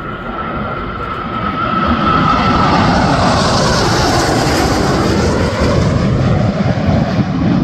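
Jet engines of a formation of five fighter jets flying low past. A high whine sinks slightly in pitch over the first couple of seconds, then the engine noise grows louder and fuller and stays loud.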